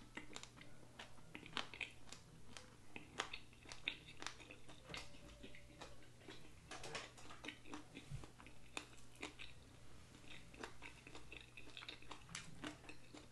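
Close-up eating sounds of a person working through chicken wings: quiet chewing with frequent small sharp clicks and crunches as the meat is pulled and picked off the bones.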